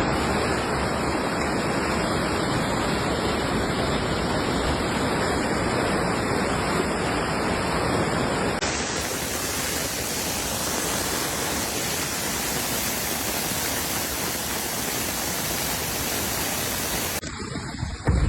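Steady roar of rushing floodwater. Its sound changes abruptly about halfway through and again near the end.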